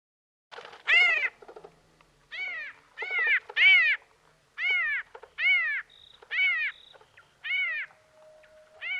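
Reconstructed Caihong juji calls made from slowed-down small-bird calls (rufous hummingbird, little spiderhunter and shining sunbird recordings): a series of about nine short, rich calls, each rising then falling in pitch, repeated at uneven intervals of under a second to just over a second.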